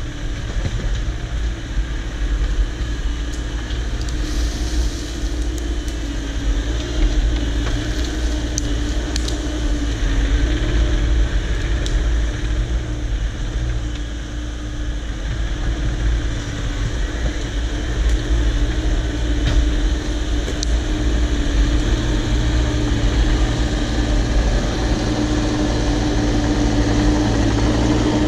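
Cat 304 mini excavator's diesel engine running steadily at working speed, its pitch wavering slightly as it takes load, with a few faint ticks.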